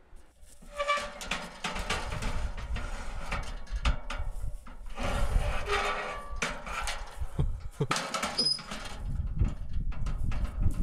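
Aluminium extension ladder clattering and knocking as it is lifted away from a steel grain bin and repositioned, over a steady low rumble.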